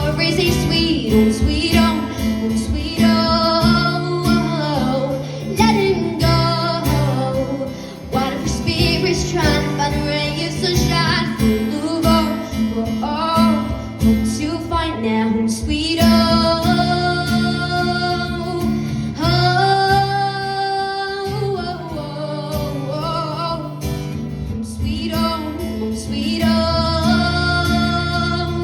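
Live acoustic song: a female singer singing a slow melody over acoustic guitar.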